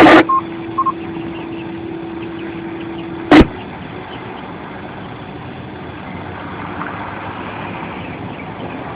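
Ham radio after a transmission ends: two short beeps, then a steady hum that cuts off with one loud click about three and a half seconds in. After the click comes a steady rushing background noise.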